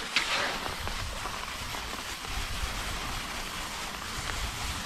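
Nordic classic racing skis hissing steadily over the snow in a long glide, with a brief sharp tick just after the start.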